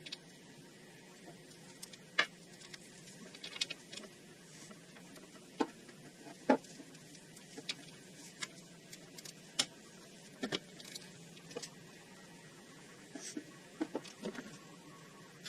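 Scattered light clicks, taps and clinks at irregular intervals, the sound of hand tools and small metal parts being handled during mechanical work; the sharpest knock comes about six and a half seconds in.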